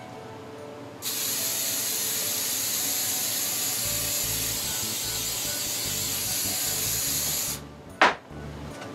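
Aerosol can of Aqua Net hairspray spraying in one continuous hiss of about six seconds, misting a model pine tree so ground foam will stick. Near the end comes a single sharp knock.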